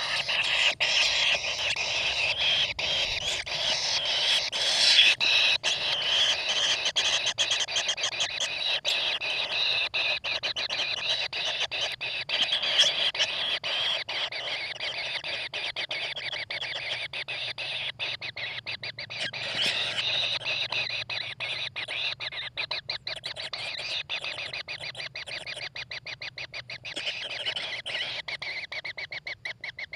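Kingfisher nestlings calling in a rapid, rasping chatter: a dense train of clicking calls with no break, growing a little quieter near the end.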